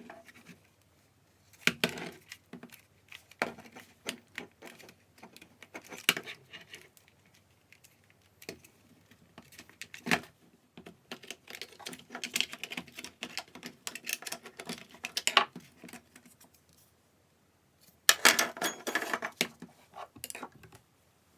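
Small hard plastic and metal parts clicking and clinking as they are handled, in irregular bursts with short pauses between them.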